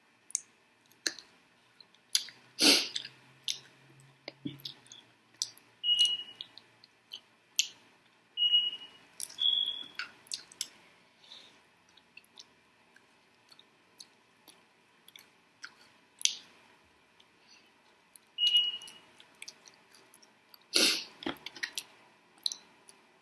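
Close-up chewing and wet mouth sounds of someone eating mango habanero chicken wings: an irregular string of smacks and clicks. A few short high squeaks come through, and there are two louder sudden sounds, one about three seconds in and one near the end.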